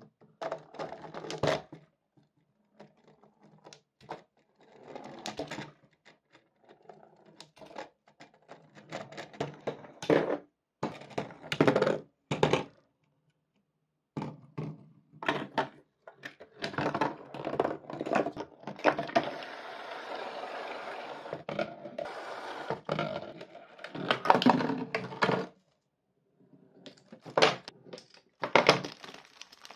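Glass marbles rolling along cardboard tracks of a marble run, with many quick clicks and knocks as they strike the track walls, parts and each other. In the middle comes a longer stretch of steady rolling clatter, broken by a few brief silences.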